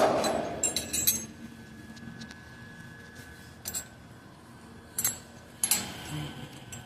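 A loud rushing sound dies away at the start. Then come scattered sharp clinks and taps: a cluster about a second in, one around the middle and two louder ones near the end, over a faint steady hum.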